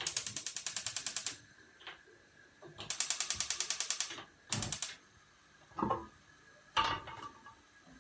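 Gas cooker's spark igniter ticking rapidly, about a dozen clicks a second, in two spells of over a second each as the burner is lit; a few single knocks follow.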